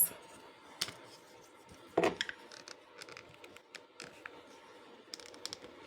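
Faint scattered clicks and light taps from handling a folding Bluetooth keyboard with touchpad and its device, with a slightly louder knock about two seconds in.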